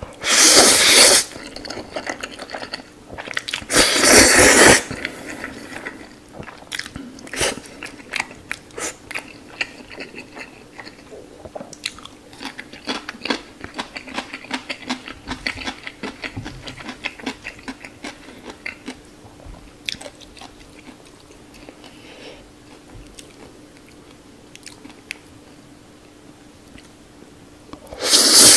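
A man slurping instant noodles: two loud slurps in the first five seconds and another near the end, with wet chewing clicks and mouth smacks in between. The noodles are Carbonara Buldak spicy chicken noodles at the start and black-bean Jjajaroni near the end.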